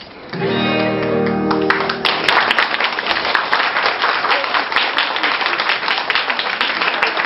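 Music ends on a held chord, and about two seconds in audience applause breaks out and keeps going.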